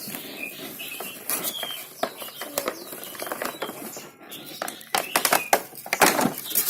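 Clear plastic packaging crinkling and rustling as it is handled, a run of crackles that gets louder and denser near the end.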